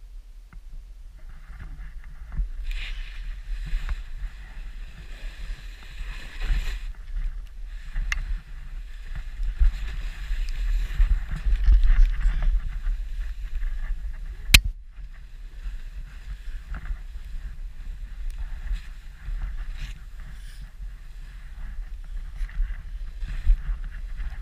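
Wind buffeting the camera's microphone as a low rumble, under the hiss of snow sliding as the rider carves through deep powder, which swells and fades with the turns. One sharp knock a little past halfway.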